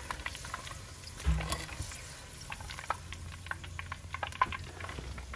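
Okra frying in hot oil over a wood fire: scattered crackles and pops, with one dull knock about a second in.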